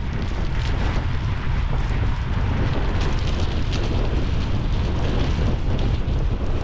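Wind rumbling on the microphone of a bike-mounted action camera as a road bike rolls along a wet road, its tyres hissing on the wet tarmac. The noise is steady and low.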